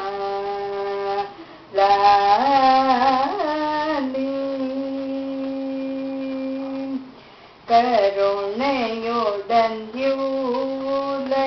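A woman singing a Tamil lali song on Rama, solo, drawing out long vowel notes between the lines of text. Partway through she holds one steady note for about three seconds. Short breaks for breath come twice.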